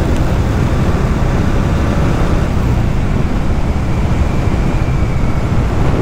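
Wind buffeting the microphone of a Bajaj Dominar 400 motorcycle on the move, with its engine running beneath; a steady, dense rush, heaviest in the low end.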